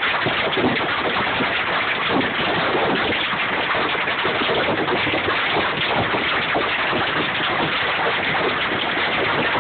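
Heavy rain falling as a dense, steady patter, heard from inside a vehicle whose wet rear is open to the downpour.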